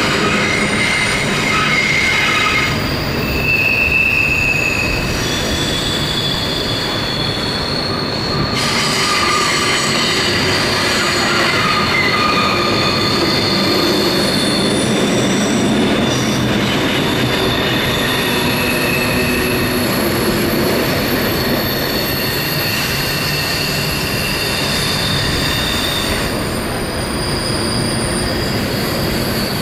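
Covered grain hopper cars rolling around a curve, their wheels squealing against the rail in shifting high tones that come and go, over a steady rumble of wheels on track.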